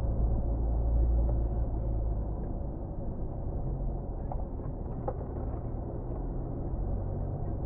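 Car driving: steady engine and road noise making a low drone, with a couple of faint ticks about four and five seconds in.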